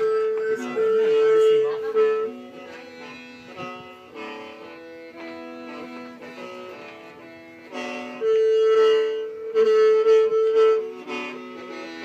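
Hmong khen, a bamboo free-reed mouth organ, playing a slow melody of long held notes over a steady low drone, louder at the start and again from about eight seconds in.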